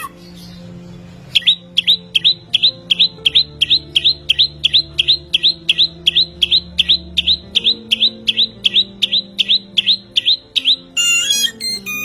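Caged songbird repeating one short, high, downslurred whistled note about three times a second, starting just over a second in, then breaking into a brief burst of harsher chattering notes near the end. Soft background music with sustained low notes plays underneath.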